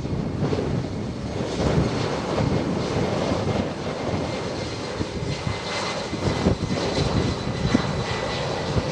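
Fixed-wing aircraft engines running with a steady rumbling noise and a faint high whine on top.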